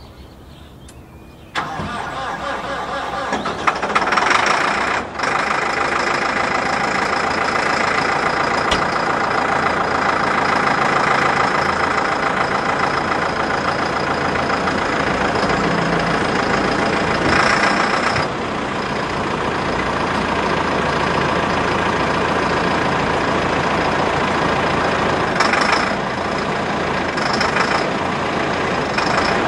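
A large vehicle's engine cuts in about a second and a half in, then runs steadily at idle with a few brief swells.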